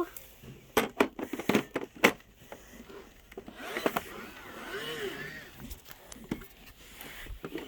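Irregular plastic clicks and knocks from the Roomba e5 being handled and its brush compartment opened, with a faint wavering voice-like tone in the middle.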